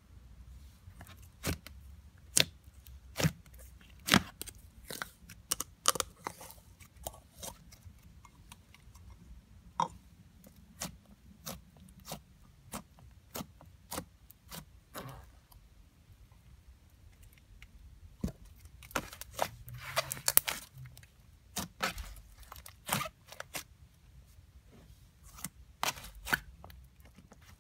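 Pink cool whip slime being poked, pressed and kneaded by hand, giving irregular sharp crackles and pops, with a denser run of crackling around twenty seconds in.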